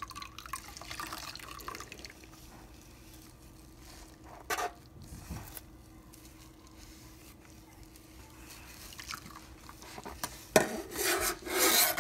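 Dishes being washed by hand in a sink of soapy water: rubbing and scrubbing with splashing water, louder in short bursts about four and a half seconds in and again near the end.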